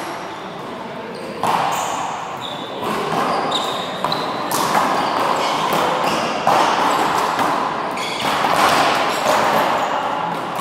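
Rubber handball slapped by hand and smacking off the wall and floor during a rally, a sharp hit every second or two, each ringing on in the echoing hall.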